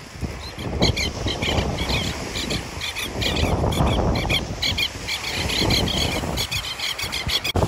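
Birds in flight calling in quick, repeated shrill high notes, several a second, over the rush of wind and waves on the shore.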